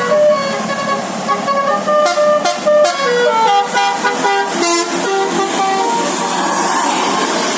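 A bus's basuri telolet horn playing a quick tune of short stepped notes, with a run of falling notes in the middle. The tune stops about six seconds in, leaving a steady noisy rush.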